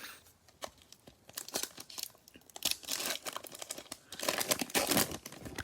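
Foil trading-card pack wrapper crinkling and tearing as it is opened, with short clicks of cards being handled; the crinkling comes in two longer stretches in the second half.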